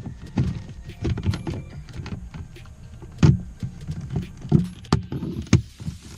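Irregular clicks, knocks and rattles as small car-interior parts are handled around the gear shifter, with a few sharper knocks in the second half. A steady low hum runs underneath.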